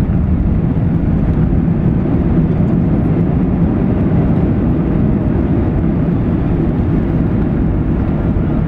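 Airbus A320 landing rollout heard from inside the cabin: a loud, steady low rumble of the engines and the wheels running along the runway as the jet slows with its ground spoilers up.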